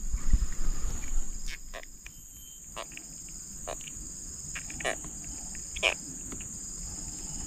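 Steady high-pitched insect drone, with a fainter pulsing trill underneath. About six sharp clicks and taps are spread through it, the loudest near the end, as a hook is worked out of a caught fish's mouth by hand. A low handling rumble comes in the first second.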